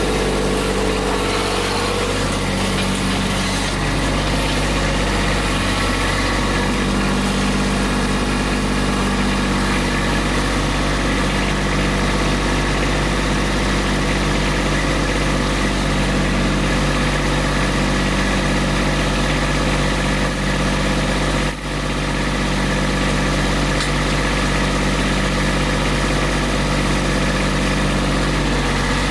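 Kubota B2601 compact tractor's three-cylinder diesel engine idling steadily.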